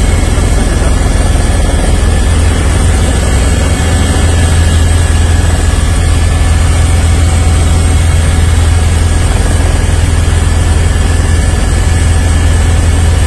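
Helicopter engine and rotor noise heard from inside the cabin: a loud, steady deep drone with a thin high whine above it.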